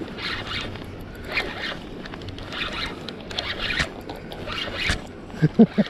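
Spinning reel being cranked in repeated rasping bursts while a hooked chum salmon is played. A person's voice sounds briefly near the end.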